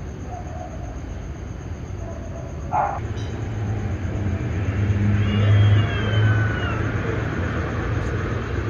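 Cats fighting: a low growling rumble builds through the middle and is loudest about five to six seconds in, with a wavering, falling yowl over it between about five and seven seconds.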